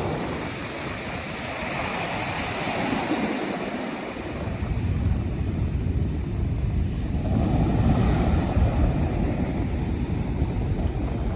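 Pacific Ocean surf breaking and washing ashore in a steady wash, swelling twice, with wind buffeting the microphone in a low rumble.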